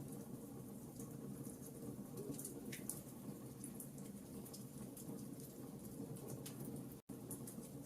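Campfire burning: a steady low rush of flames with frequent, irregular sharp crackles and pops from the burning wood. The sound drops out for an instant about seven seconds in.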